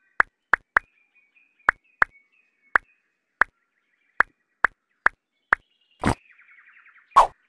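About a dozen short, identical plop sound effects as the miniature bricks are set in place one by one, unevenly spaced, then two louder, fuller knocks about six and seven seconds in, the second the loudest.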